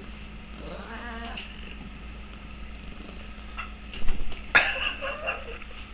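Oriental Shorthair cat meowing: one drawn-out, wavering meow about a second in, then louder, close-up meows mixed with rustling from about four seconds in.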